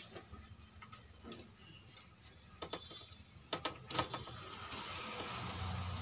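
Small clicks and rattles of cables being handled and an RCA plug being pushed into a TV's AV input jack, with a cluster of clicks about halfway through. Near the end a steady low hum and hiss comes up.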